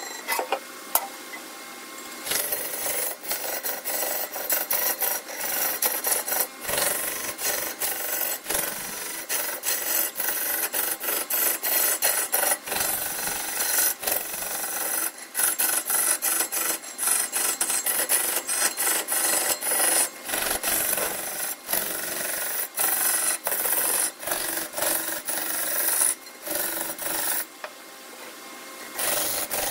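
Wood being cut or sanded on a woodturning lathe: a steady rasping hiss of tool or abrasive against the spinning wood, broken by frequent short gaps.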